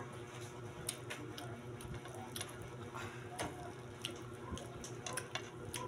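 Scattered small clicks and soft ticks of eating: fingers picking up battered quail eggs (kwek-kwek) from a foil-lined plate, with mouth sounds, over a steady low hum.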